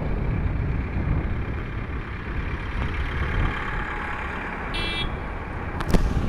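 Steady low rumble of a truck's engine and road noise in slow jammed traffic, heard from the cab. A short high-pitched beep sounds about five seconds in, followed by a sharp knock just before the end.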